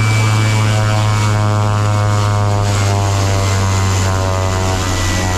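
Kodiak 100's Pratt & Whitney PT6A turboprop running at low taxi power: a steady, loud propeller drone with a thin high turbine whine over it.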